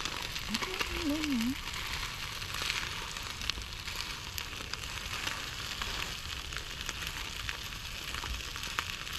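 Chicken pilaf sizzling as it heats: a steady crackling hiss with scattered pops of spattering fat.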